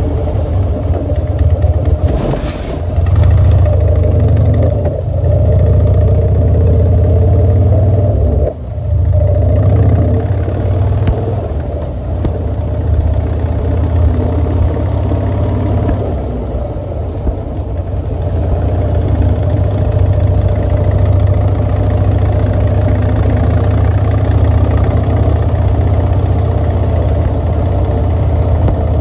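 Motorcycle engine running steadily under way on a paved road, with a short clatter about two and a half seconds in as the wheels cross a cattle guard, and a brief drop in engine sound about eight and a half seconds in.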